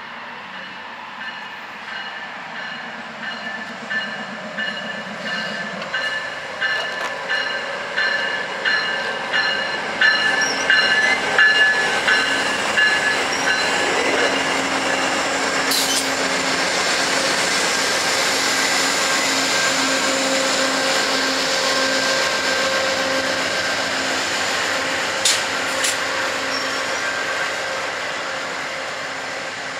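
Amtrak California Zephyr passenger train going by close at hand: a rhythmic wheel clatter grows louder over the first dozen seconds, then gives way to a steady rush of passing cars, with a couple of sharp clicks later on.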